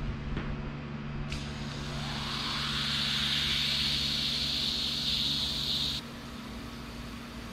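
Aerosol tire sealant and inflator can discharging through its hose into a leaking tire's valve: a steady hiss with a faint rising whine in it. It starts sharply about a second in and cuts off about six seconds in.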